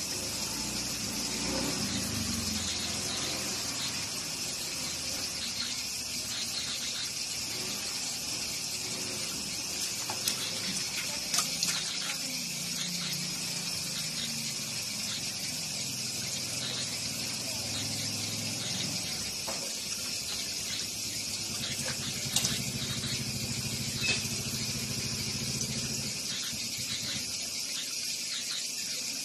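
Tap water running steadily into a plastic tub and trickling over its rim, with a few sharp clicks. A low hum lies underneath and stops near the end.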